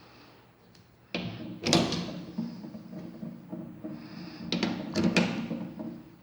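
Sharp clicks and knocks from hard objects being handled, with scraping and rattling between them: two about a second in and two more past four and a half seconds.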